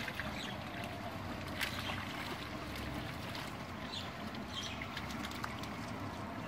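Water trickling and splashing as a wet fishing net is handled in shallow pond water, with a few short splashes.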